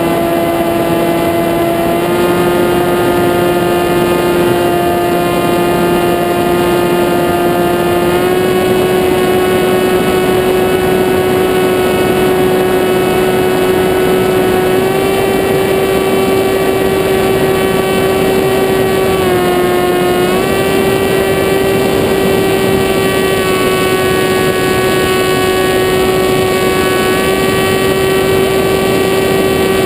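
Model aircraft's motor and propeller running with a steady whine over wind rush, the pitch stepping slightly up and down a few times and dipping briefly about twenty seconds in.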